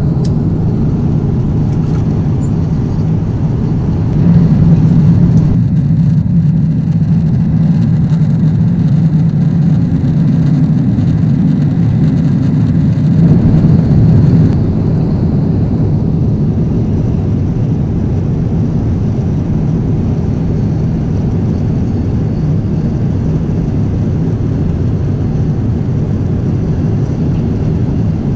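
Steady low rumble of a Boeing 777-300ER's economy cabin in cruise: engine and airflow noise. It grows louder for about ten seconds from about four seconds in.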